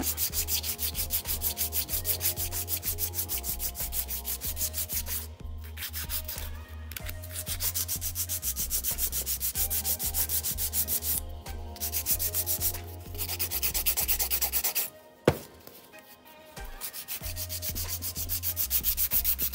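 Hand nail file scraping back and forth over a sculpted acrylic stiletto nail in quick, even strokes, about four a second, shaping the nail's side. The strokes break off briefly a few times, and there is one sharp tap during a longer pause about three quarters of the way through.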